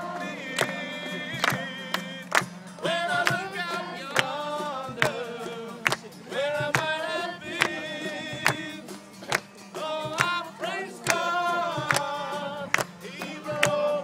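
A group singing a gospel chorus together to an acoustic guitar, with hands clapping on the beat about every two-thirds of a second.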